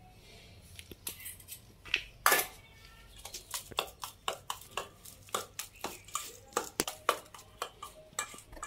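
A metal spoon scraping and clinking against a stainless steel bowl as puppy food is stirred. It starts about a second in, with the loudest clatter a little after two seconds, then goes on in quick strokes, two or three a second.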